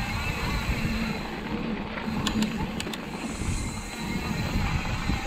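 Wind buffeting the camera microphone and mountain bike tyres rumbling over a dirt trail, with a few sharp ticks a little over two seconds in.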